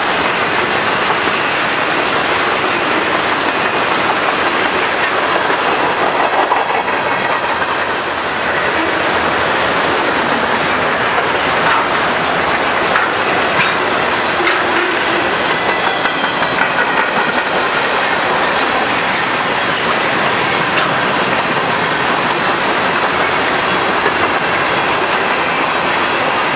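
Freight train cars rolling past at close range, a loud steady rumble and rattle of wheels clattering over the rail joints.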